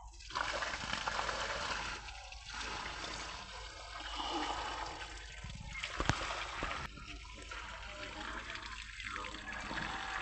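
Water poured in a stream from a bag, splashing onto a pile of freshly caught fish, with short breaks in the flow every couple of seconds.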